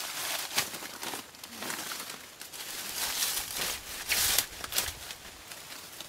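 Banana plant stalk and leaves being torn and broken apart by hand: irregular rustling and crackling tears, the loudest about four seconds in.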